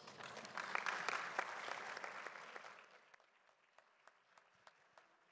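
Audience applauding, loudest about a second in and dying away by about three seconds, then a few scattered last claps.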